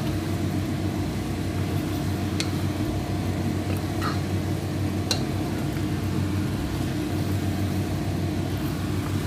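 A spatula stirring a stew of chicken and vegetables in a pan, with a few light clicks against the pan, over a steady low hum.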